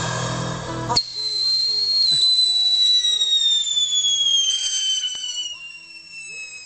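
Whistling firework: one long high whistle starts suddenly about a second in and slowly falls in pitch for several seconds before fading. A single sharp crack sounds partway through.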